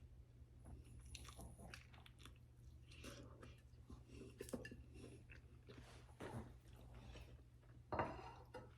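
Faint chewing of a bite of a soft flour tortilla filled with shredded chicken fajita mix, a little louder near the end.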